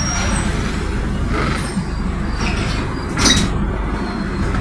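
Mercedes-Benz OF-1722M bus running: a steady low rumble with short rattles, and a sharp knock about three seconds in.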